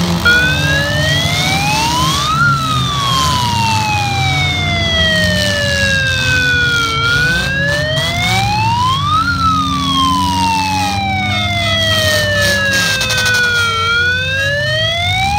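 A siren wailing, its pitch rising over about two seconds and falling more slowly over about four, repeating about every seven seconds, over demolition derby car engines running.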